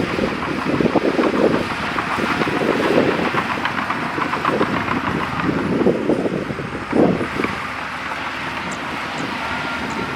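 Bulldozer at work: diesel engine running under load with a dense crackle of short knocks and clanks throughout, and wind buffeting the microphone.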